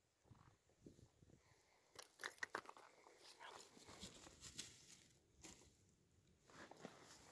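Faint rustling and crackling of grass and bank vegetation being brushed and trodden, with scattered small clicks, loudest about two seconds in.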